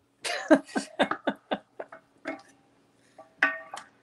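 Wooden spoon scraping the bottom of an enamelled cast-iron Dutch oven and knocking against it, as wine deglazes the browned bits: a run of short knocks, about four a second, fading over the first second and a half, then one louder knock with a brief ring a little after three seconds in.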